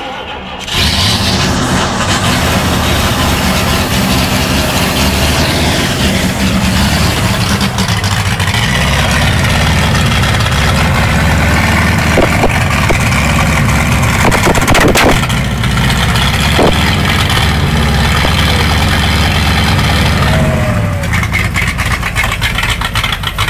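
Ford Landau's alcohol-fuelled V8 engine comes up loud about a second in and keeps running for about twenty seconds, then drops back quieter near the end.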